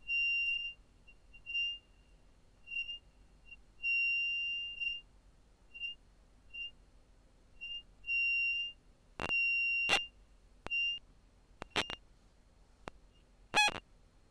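Short high-pitched squeaks repeating at uneven spacing, some brief and one held for about a second. This is the tonal squeak isolated by NMF source separation, with the clicks and transients removed. About nine seconds in, sharp clicks join the squeaks as the separated components are played back summed together.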